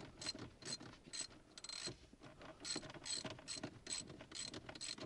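Socket ratchet clicking in quick runs as it winds back the handbrake cable adjusting nut to slacken the cables, with a short pause about two seconds in.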